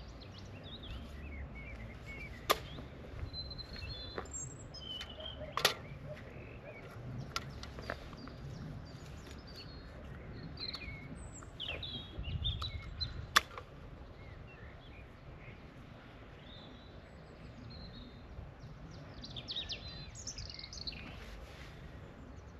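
Songbirds chirping and singing, with short calls on and off throughout. Three sharp clicks cut through, the loudest past the middle, as a metal hand planting tool knocks against stones while digging planting holes in stony garden soil, with a low scraping rumble of soil being worked.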